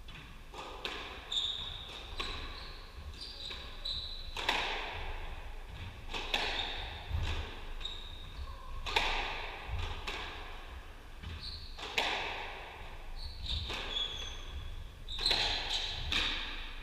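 Squash rally: the ball cracking off rackets and the court walls every second or so, each hit ringing on in the court's echo, with short high squeaks of shoes on the wooden floor between the shots.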